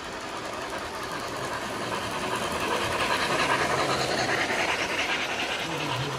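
O gauge model Hudson steam locomotive pulling passenger cars along the track, running past close by. The sound grows louder to a peak about halfway through, then eases off.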